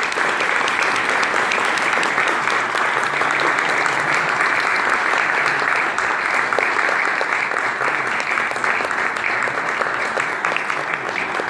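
Audience applauding: many people clapping steadily at a constant level.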